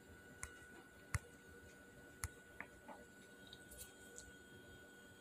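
Near silence: quiet room tone with a handful of faint, scattered clicks and taps, the sharpest about a second in.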